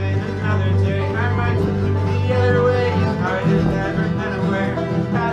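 Acoustic bluegrass string band playing an instrumental passage together, banjo and guitars picking over a steady rhythm.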